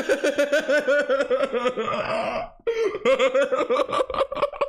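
A man laughing hard in rapid, repeated bursts, with a short catch of breath about halfway through before the laughter picks up again.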